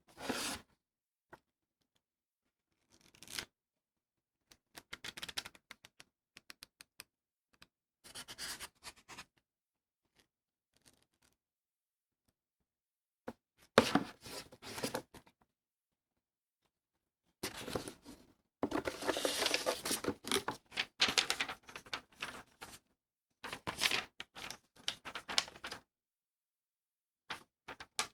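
Unboxing packaging being torn open and handled in separate bursts with quiet gaps between them. The longest and loudest stretch of tearing and crinkling comes about two-thirds of the way through.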